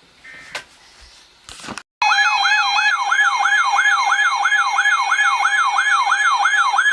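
Weather alert radio's built-in siren alarm sounding for a new warning: a loud warbling tone that sweeps up and down about three times a second. It cuts in about two seconds in, after a few faint clicks and beeps.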